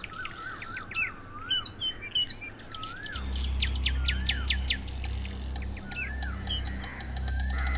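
Several birds chirping and tweeting in many short calls that sweep up and down in pitch. A low steady hum comes in about three seconds in.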